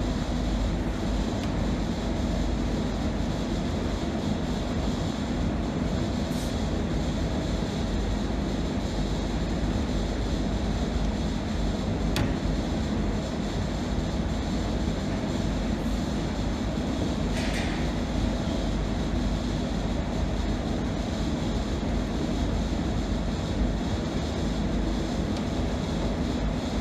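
A steady low mechanical hum with a constant tone in it, unchanging throughout, with a few faint light clicks.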